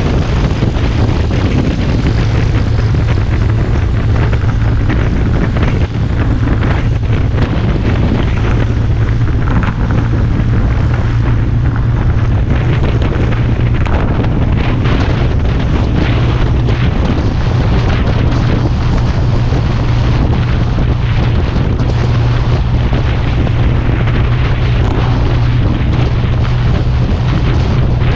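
Small motor scooter engine running steadily at cruising speed, a constant low drone, with wind noise buffeting the camera microphone.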